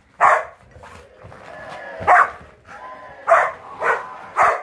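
Pitweiler dogs (pit bull–rottweiler mixes) barking in play as they wrestle, about five short barks over a second or so of lower rumbling.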